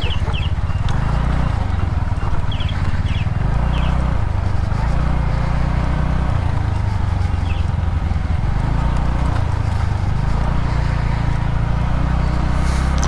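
TVS Ntorq scooter's single-cylinder engine running at low speed on a dirt track, its note rising and falling as the throttle is opened and eased.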